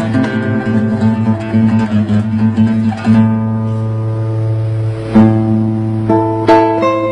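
Solo classical guitar playing a Chinese-style melody: quick plucked notes over a held bass note, then louder struck chords in the second half.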